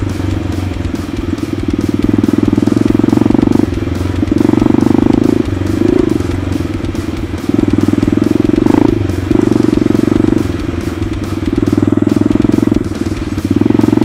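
Pit bike engine running under the rider, the throttle opened and eased off in surges every one to two seconds as it rides a rough grassy track.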